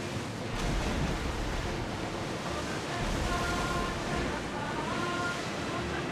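Sea waves and wind making a steady rushing noise, with faint short steady tones in the background from about halfway through.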